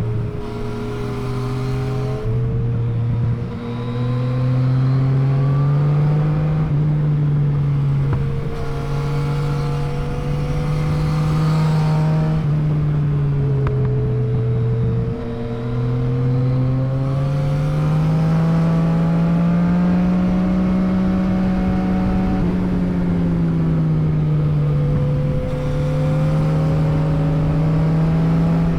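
Yamaha MT-09's inline three-cylinder engine under way, its note rising and falling as the rider rolls on and off the throttle, with a few brief dips in loudness. A steady rush of wind noise runs underneath.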